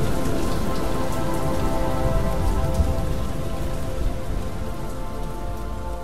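Steady rain with a low rumble, under a soft held chord, starting to fade out in the second half.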